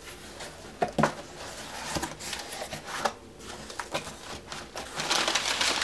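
Cardboard shipping box opened by hand: flaps rubbing and a few light knocks, then crumpled packing paper starting to crinkle loudly near the end.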